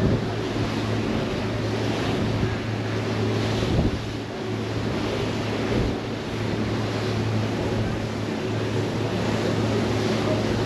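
Staten Island Ferry's engines droning steadily, with rushing water and wind buffeting the microphone.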